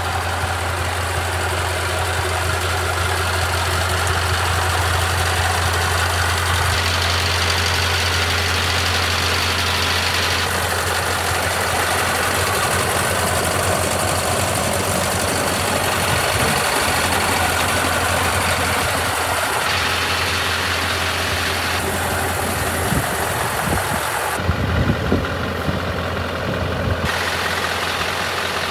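Scania R500 truck's V8 diesel engine idling steadily, with a few dull bumps near the end.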